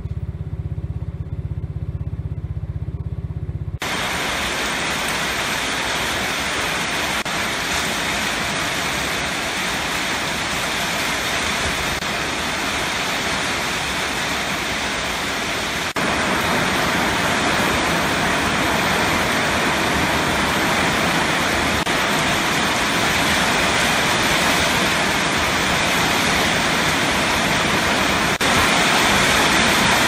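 Heavy rain pouring, a steady hiss that comes in about four seconds in and grows louder about halfway through and again near the end. Before the rain, a low steady rumble.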